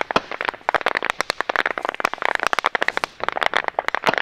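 Dry grass stalks crackling and rustling against the camera as it moves through tall dry grass: a dense, irregular run of sharp crackles.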